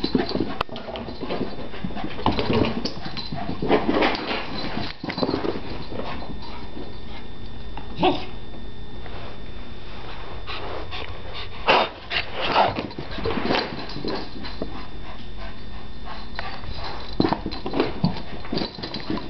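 A hyper soft-coated wheaten terrier making short dog noises in irregular bursts over a steady background noise.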